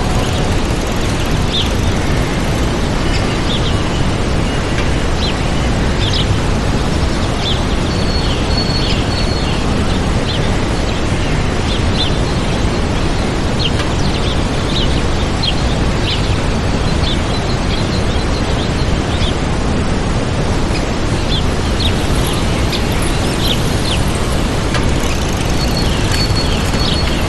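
Waterfall rushing steadily, with small birds chirping over it in short, high calls and an occasional brief whistle.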